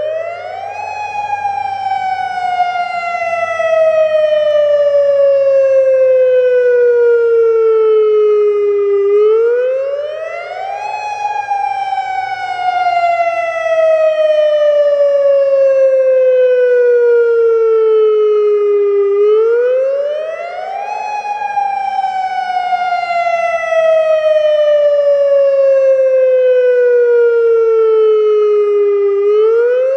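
Federal Signal Modulator 3012 outdoor warning siren sounding a full wail: the pitch rises quickly for about two seconds, then falls slowly for about eight, and the cycle repeats three times.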